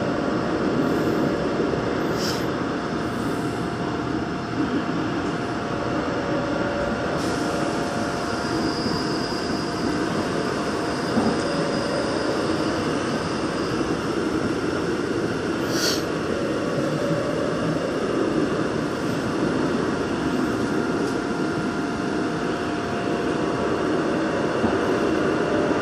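Daegu Metro Line 2 subway train running through a tunnel, heard from inside the train: a steady rumble of wheels on rail. Two brief high hisses come through, about two seconds in and again near sixteen seconds.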